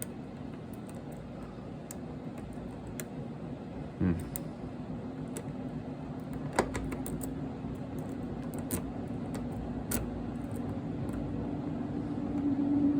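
Faint metallic clicks and ticks of a lock pick and tension wrench working the pins of a lock. Behind them a washing machine hums steadily, rising slightly in pitch and growing louder near the end as it speeds up.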